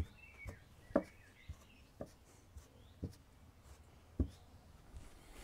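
Faint, scattered knocks and taps of motorcycle axle parts (the rear axle, spacers and nut) being picked up and moved off a towel-covered workbench, roughly one every half second to a second, the loudest about four seconds in.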